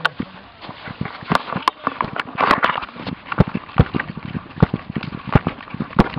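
Footsteps of a soldier running over grassy ground, a rapid, uneven series of thuds and knocks close to the microphone.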